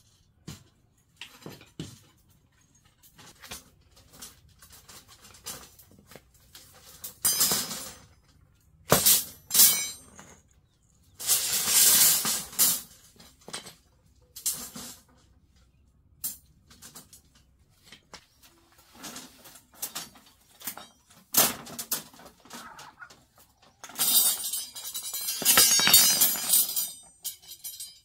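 A shovel scraping and shifting gritty sand and gravel in irregular strokes, with two longer scrapes of a second or two near the middle and near the end.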